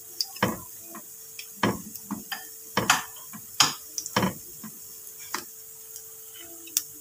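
Banana fritters frying in hot oil in a frying pan: a steady sizzle broken by about ten sharp, irregular pops and clicks.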